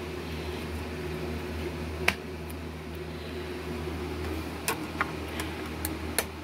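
Plastic clicks from handling a DVD: a sharp click about two seconds in as the disc pops off its case's centre hub, then several lighter clicks and taps as it is set on a portable DVD player's spindle and pressed into place, over a steady low hum.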